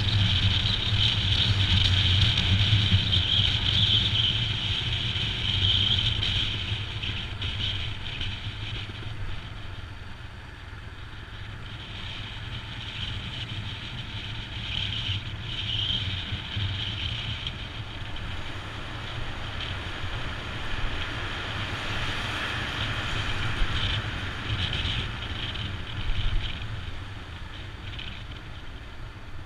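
Royal Enfield Himalayan's single-cylinder engine running as the motorcycle rides along, with wind rushing past. The sound is louder for the first several seconds and settles quieter from about ten seconds in.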